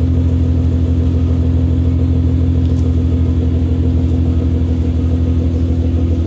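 Nissan GT-R R35's twin-turbo 3.8-litre V6 idling steadily through an Armytrix titanium valvetronic straight-pipe exhaust, a deep even rumble with no revving.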